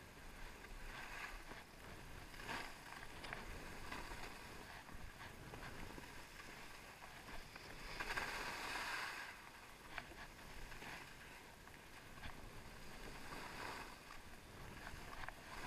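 Skis carving turns on packed groomed snow: a faint swish and scrape of the edges with each turn, coming every second or so, the longest one about halfway through.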